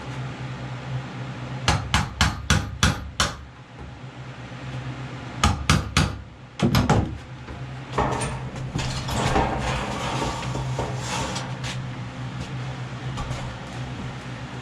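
Hammer strikes in quick runs, about six, then three more and a heavier blow, followed by a few seconds of scraping, crumbling noise, over a steady low hum.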